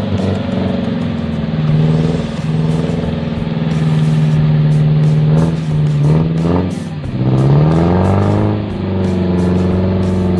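Engine of a compact 4x4 off-roader revving hard under load as it claws up a muddy bank with its wheels spinning. The revs hold high and steady, then drop and climb again twice around the middle before settling.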